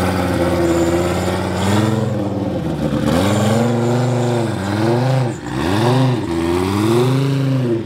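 Five-cylinder engine of a Group-B-style Audi drift car running and being revved, its pitch rising and falling in about four blips.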